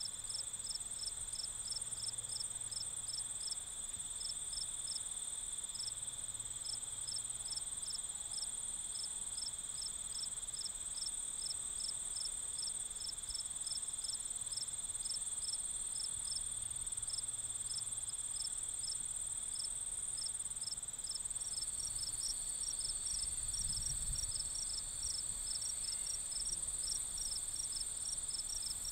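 Insect chorus: a steady high-pitched trill over a lower steady trill, with regular chirps about two or three a second; a second, faster chirper joins in about three quarters of the way through.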